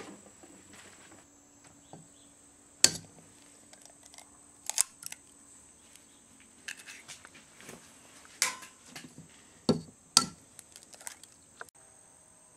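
Eggs being cracked on the rim of a ceramic mixing bowl: a handful of sharp cracks and taps spread through, the loudest about three seconds in.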